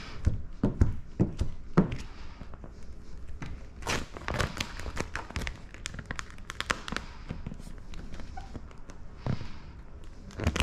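Clear paint protection film being handled and stretched over the wet front edge of a hood with a plastic squeegee: irregular crinkles, clicks and taps of the film.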